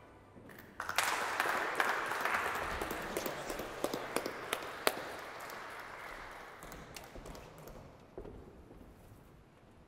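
Small audience applauding, starting suddenly about a second in, with a few single sharp claps standing out, then thinning and fading away over several seconds.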